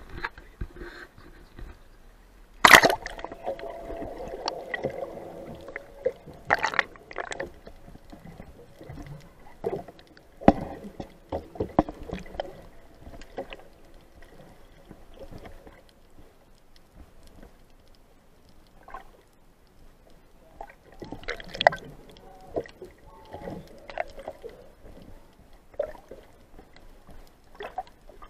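A splash about three seconds in as a waterproof camera plunges into the sea, then muffled underwater gurgling with scattered knocks and clicks.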